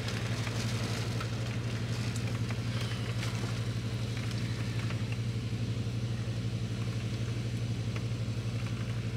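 Tropical storm wind and rain hissing over a steady low mechanical hum with a fine regular pulse.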